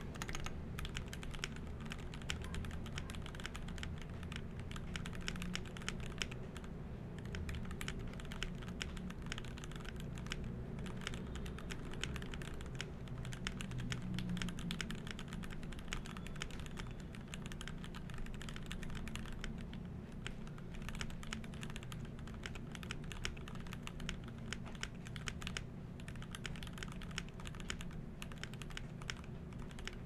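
Continuous fast typing on a GMMK Pro mechanical keyboard with an aluminium plate and its plate and PCB foam removed, fitted with lubed Gateron Milky Top Black linear switches on 75 g springs and ABS keycaps. The keystrokes run together in a dense, unbroken stream with no pauses.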